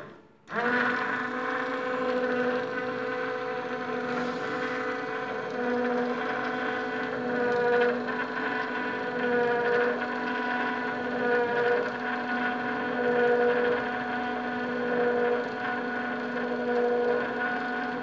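Electric motor of a homemade sawmill power-feed starting about half a second in, then running steadily with a whine while it drives a roller chain over sprockets. The whine swells slightly about every two seconds.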